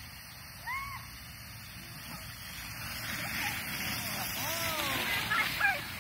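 Children's whoops and squeals as they ride an inflatable raft down a wet plastic slip-and-slide, with a swishing hiss of the raft over the wet sheet that grows louder as they slide closer. One short whoop comes about a second in; the louder squeals and the swish build from about halfway.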